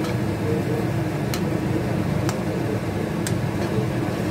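Metal spatula stirring gravy in a kadhai, with a few sharp clicks as it taps the pan, over a steady low rumble.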